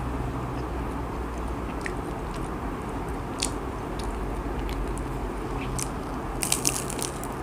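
Bite into a fried banana spring roll with a chocolate drizzle, its wrapper crunching in a quick cluster of crackles about six seconds in, after a few faint mouth clicks. A steady low hum runs underneath.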